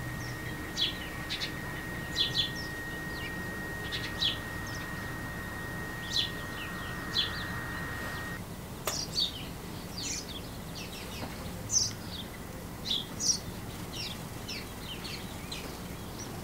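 Small birds chirping repeatedly in short, high calls. Beneath them a faint steady high tone runs and stops abruptly about eight seconds in, followed by a single click.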